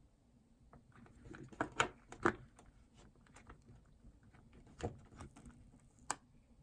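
A few light clicks and taps of small hard objects, a cluster about two seconds in and single ones near five and six seconds, over a quiet room.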